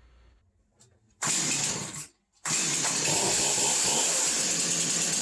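Stihl MS291 two-stroke chainsaw starting: after a short quiet it fires and runs for about a second, cuts off, then from about halfway in runs steadily.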